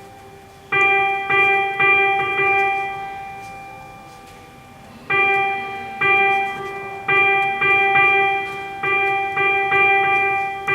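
Synthesizer playing one note over and over, each with a sharp start that fades: a few quick repeats, a lull of about two seconds as the last one dies away, then steady repeats about twice a second.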